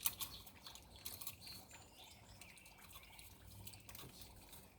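Water dripping and trickling, with a faint bird chirp partway through, scattered small ticks, and a sharp click right at the start.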